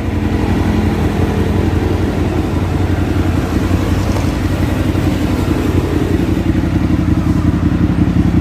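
Suzuki V-Strom 1000's V-twin engine running at a steady idle through a Yoshimura aftermarket exhaust, with an even, rapid beat of exhaust pulses.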